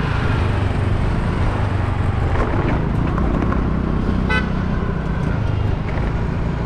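Steady engine hum and road noise from a moving vehicle in street traffic, with one short vehicle horn toot about four seconds in. The engine note shifts near the end.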